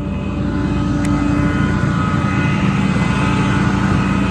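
Engine-driven machinery running steadily: a low hum with several steady higher tones, getting a little louder about half a second in.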